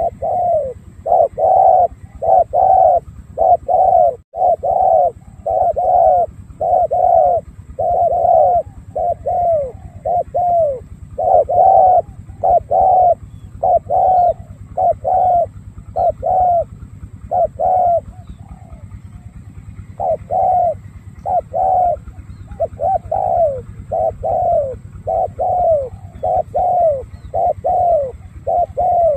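Spotted dove cooing in a rapid, steady run of short coos, about two a second, with a pause of about two seconds two-thirds of the way through.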